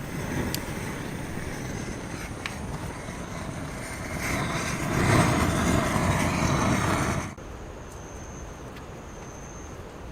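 A broad rumbling noise that swells about four seconds in and cuts off suddenly a little past seven seconds, leaving a quieter steady background with a faint high tone.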